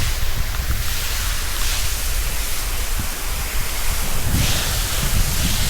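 Water from a yard-wash hose spraying onto the concrete of a dairy shed yard, a steady rushing hiss, washing stones off the floor, with a low rumble underneath.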